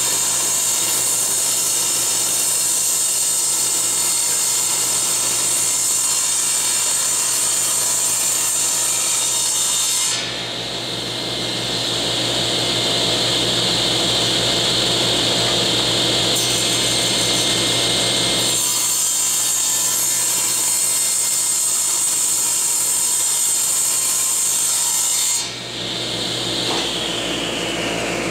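Table saw ripping a board of very hard lyptus along the fence, the blade loud under load with a steady motor hum beneath. For several seconds midway the sound turns to a higher steady whine before the full cutting noise returns. Near the end the saw is switched off and the blade's whine falls in pitch as it spins down.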